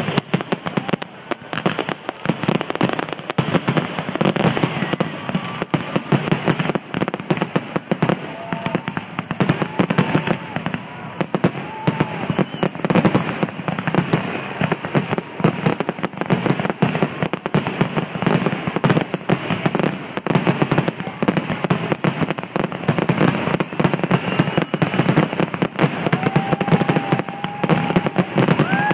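Fireworks display: a dense, continuous barrage of aerial shells bursting and crackling, many bangs a second with no pause. A few brief held tones rise over it around the middle and near the end.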